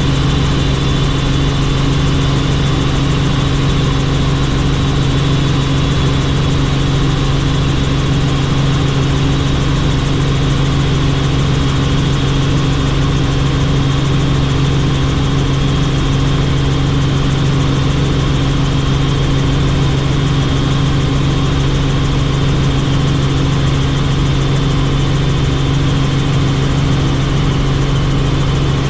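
Helicopter engine and rotors running steadily: a constant loud drone with a strong low hum that does not change.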